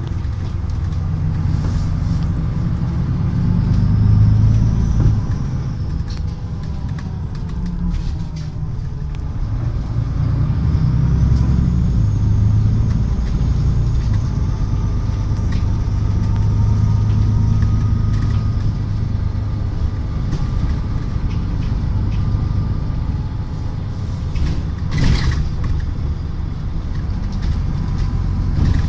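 Solaris Urbino 12 city bus heard from inside while driving: a steady low rumble of engine, drivetrain and road noise, the engine note rising and falling as the bus speeds up and slows. A short sharp knock comes about 25 seconds in.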